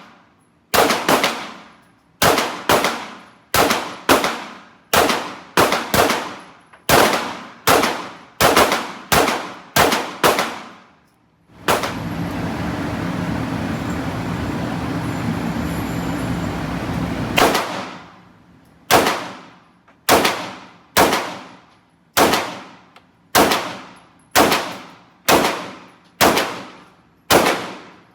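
Gunfire on a shooting range: a long string of single shots, spaced half a second to a second apart, each ringing off briefly. The shots pause for about six seconds in the middle, where a steady rushing noise takes over, then resume at the same pace.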